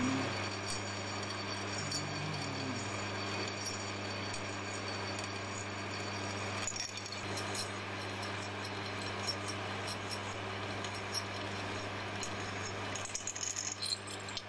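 Metal lathe running, with a drill bit in the chuck cutting through a steel cleaver blade. A steady motor hum sits under a harsh cutting noise, with scattered clicks near the end.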